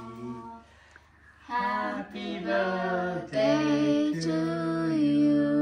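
Several voices singing together unaccompanied. After a brief pause the singing resumes about a second and a half in and ends on a long held note.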